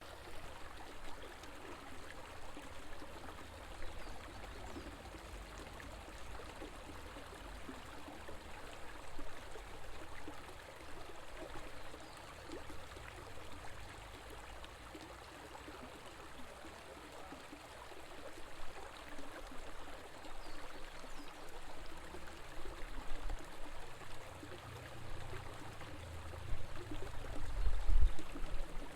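River water flowing over rocks: a steady rushing, splashing flow. Low rumbling grows louder and more uneven near the end.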